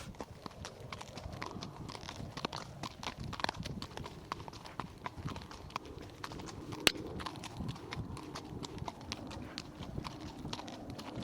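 Ridden horse's hooves clip-clopping, a run of short sharp knocks, with one much louder knock about seven seconds in.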